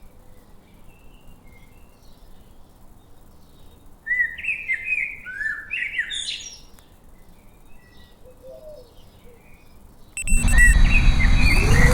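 Small birds chirping in short, quick phrases, loudest about four seconds in. About ten seconds in, an FPV drone's motors spool up suddenly into a loud whine that rises in pitch and then holds steady.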